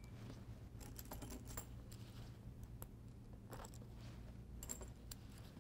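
Faint, scattered metallic clicks and clinks of bolt solid plate fastener bottom plates and their bolts being handled and fitted into punched holes in a rubber conveyor belt.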